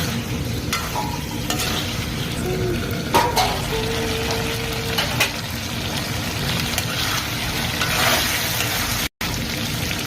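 Desi chicken frying and sizzling in a pan as it is stirred, with a few sharp knocks of the spoon against the pan.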